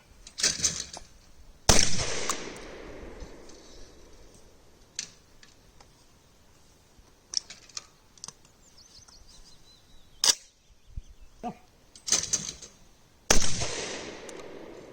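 Two shotgun shots at clay targets, one about two seconds in and one near the end, each cracking sharply and dying away in a long echo, with lighter clicks and knocks of gun handling between them.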